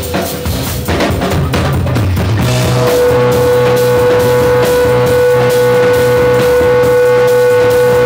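Live rock band playing: drum kit and electric guitar. About three seconds in, a high note comes in and holds steadily over the drums.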